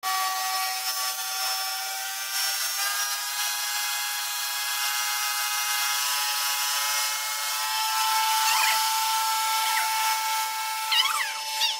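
Pressure washer running steadily: a motor whine under the hiss of the water spray striking the wall. A few short squeaky chirps come near the end.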